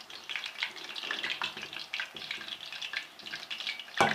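Jalebi deep-frying in hot ghee: a steady crackling sizzle with many small pops, as the coils crisp up. Near the end comes one sharp knock.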